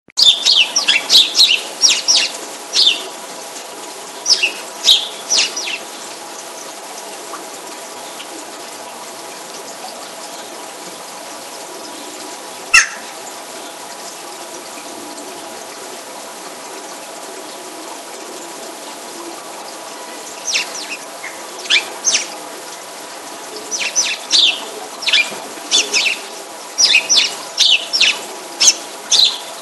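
Small bird chirping in quick runs of short, high calls, with a long pause in the middle. A steady hum runs underneath, and there is a single click about 13 seconds in.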